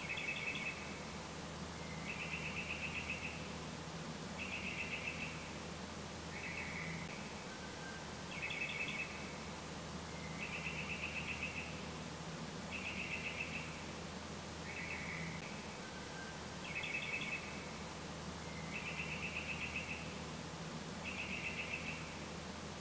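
A bird singing short trilled phrases, one about every two seconds, each phrase shaped a little differently, over a steady low hum.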